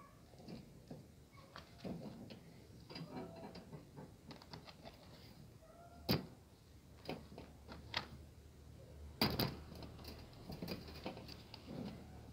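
Cat chewing dry kibble from a plastic tub: irregular faint crunches and clicks, with two louder sharp knocks about six and nine seconds in.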